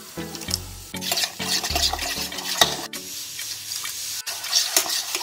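Thick flour-and-water batter being stirred in a bowl, with repeated wet mixing strokes as water is worked in to make a smooth paste.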